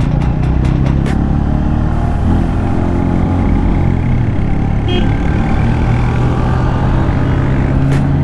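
Bajaj Pulsar N160 motorcycle engine running steadily under way, its pitch shifting a little, with a few short clicks.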